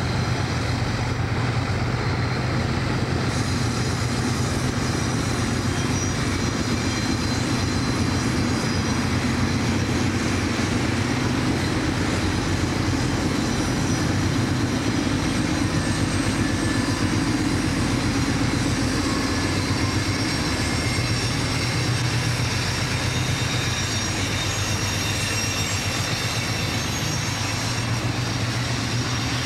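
Three Alco RS-11 diesel locomotives passing close by at low speed under load, their engines running with a steady, heavy drone. Near the end the wheels of the loaded hopper cars rolling on the rails follow behind them.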